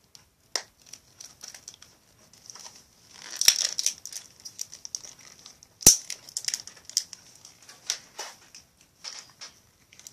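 Cellophane wrapper being picked at and peeled off a new deck of playing cards: irregular crinkling and crackling, with a louder rustle about three and a half seconds in and a sharp click just before six seconds.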